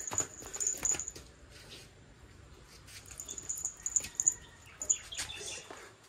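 Small bell on a puppy's collar jingling in quick bursts as the puppy runs, with light clicks of its steps. The jingling is heard in the first second and again from about three to five seconds in.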